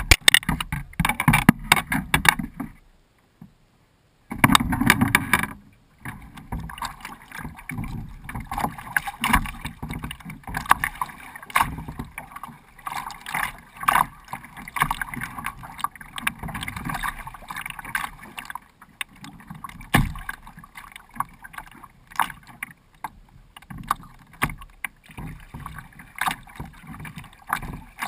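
Choppy lake water splashing and slapping against the hull of a Jackson Coosa kayak under way, an irregular crackle of small splashes over a steady wash. The sound drops out almost completely for about a second and a half, some three seconds in.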